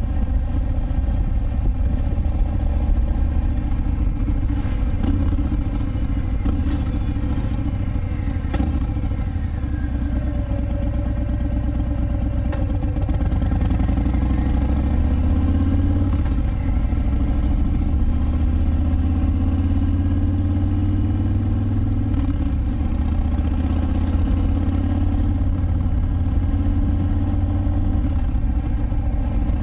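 2019 Harley-Davidson Breakout 114 (FXBRS), its Milwaukee-Eight 114 V-twin running through a Vance & Hines Big Radius exhaust as the bike is ridden along. The engine pitch climbs a couple of times about halfway through as it accelerates.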